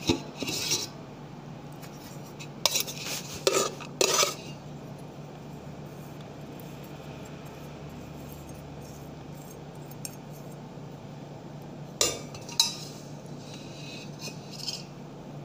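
A spoon clinking and scraping against a steel pot and a metal plate as rice is served, in short bursts of clatter: at the start, a cluster about three to four seconds in, and again about twelve seconds in.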